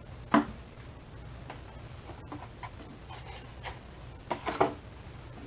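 Unboxing handling sounds: a sharp knock about a third of a second in as a part is set down, then small clicks and a cluster of rustling knocks near the end as packaging and accessories are handled.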